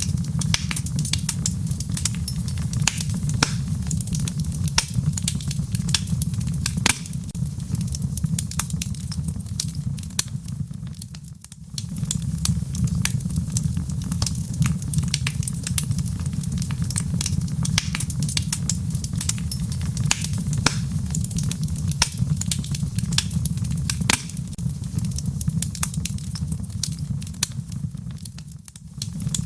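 Wood fire in a fireplace crackling: a steady low rumble of flames with frequent sharp pops and snaps. The sound briefly dips and fades twice, about eleven seconds in and just before the end.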